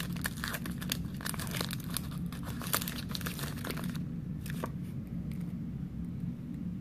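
Pokémon card booster pack's foil wrapper being torn and crinkled as the cards are pulled out. The crackling is dense for about four seconds, then drops away to a single crackle shortly after.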